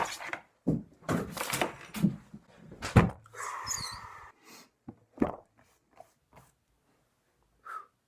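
Irregular knocks, thumps and clicks of objects being handled, with a brief rustle about three and a half seconds in and a few lighter ticks after it.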